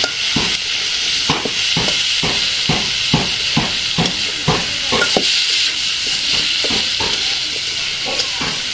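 Eel pieces and spices sizzling in a metal karai while a metal spatula scrapes and knocks against the pan in steady stirring strokes, about two or three a second, thinning out after about five seconds. This is the kosha stage, the curry being sautéed in oil.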